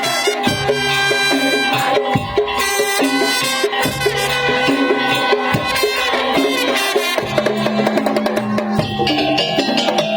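Madurese tong-tong music: wooden slit drums and drums beat a busy rhythm under a melody line.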